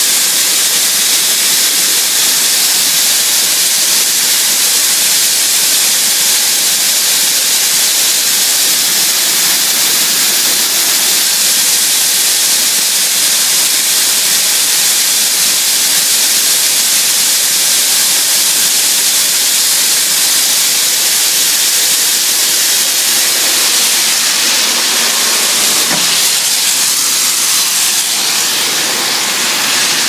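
Shelled corn pouring in a heavy stream from a wagon chute into a grain auger's hopper, a steady, loud hiss of rushing kernels.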